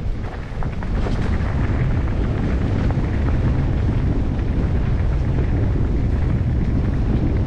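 Wind buffeting the microphone of a camera on a moving mountain bike: a steady, loud low rumble that builds about a second in, with a few sharp clicks mixed in.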